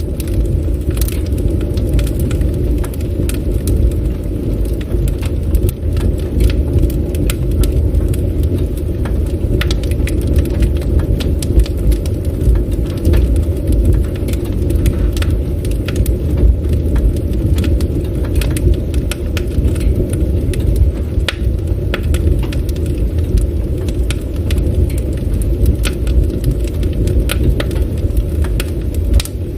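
Campfire burning: wood crackling and popping in frequent irregular sharp clicks over a steady low rumble.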